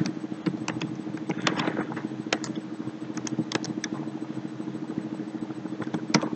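Computer keyboard typing: irregular single keystrokes, with short pauses between them, as numbers are entered one at a time. A steady low hum runs underneath.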